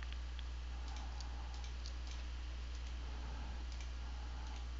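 A few faint, irregular computer mouse clicks over a steady low electrical hum.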